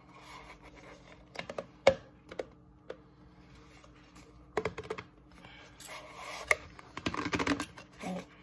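Fingers pressing and tapping down into a cardboard cornstarch box to pack the starch tight: scattered taps and knocks with cardboard rustling and scraping, busiest near the end.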